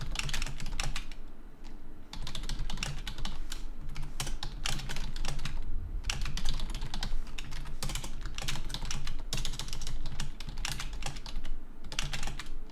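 Typing on a computer keyboard: quick runs of key clicks with a few short pauses, over a steady low hum.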